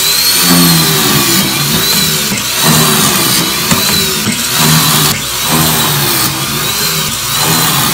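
A benchtop pocket-hole machine's drill motor running loudly as pocket holes are drilled into 3/4-inch plywood, its pitch rising and falling about once a second as the bit is plunged in over and over.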